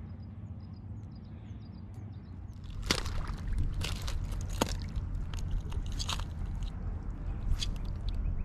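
A run of irregular sharp crunches and clicks over a low rumble, starting about three seconds in, with only faint high chirps before it.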